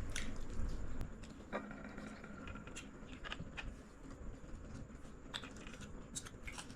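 Faint scattered clicks and light rustling of people eating at a table, with a short thin squeak about two seconds in.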